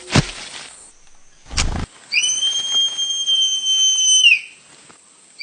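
Manakin wing display: two sharp snaps, then a long, steady, high whistle-like ringing tone that dips in pitch as it ends; a second tone begins at the very end.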